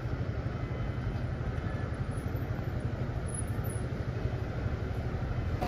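Steady low rumble of city traffic going by.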